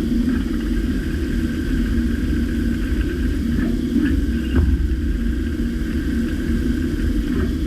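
DMG MORI M1 CNC vertical milling machine running with a steady hum and a constant high tone, and a few short clicks about halfway through and again near the end.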